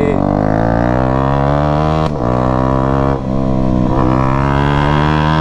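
Motorcycle engine pulling under load while riding, its pitch climbing slowly, with brief breaks about two and three seconds in, as at gear changes.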